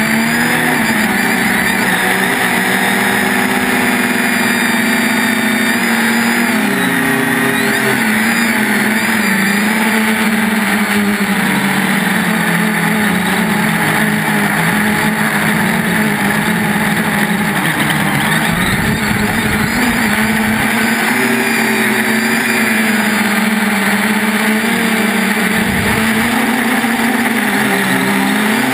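3DR Iris+ quadcopter's brushless motors and propellers buzzing steadily, the pitch wavering up and down as the motor speeds change in flight. Two brief low rumbles come in about two-thirds of the way through and again near the end.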